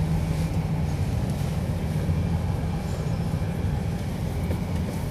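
Steady low rumble inside the cabin of a Rolls-Royce Ghost as it is driven.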